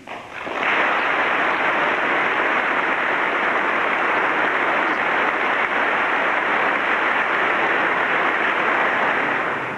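Large crowd applauding: dense, steady clapping that builds up within the first second and holds without a break, easing slightly near the end.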